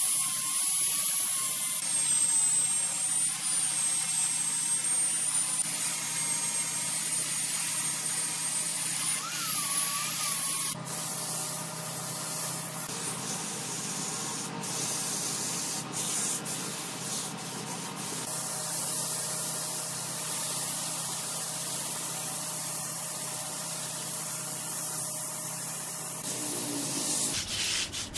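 Wood lathe turning a workpiece, with a steady hiss of a tool working the spinning wood and a low hum beneath. The sound changes abruptly about eleven seconds in, with a few sharp clicks after.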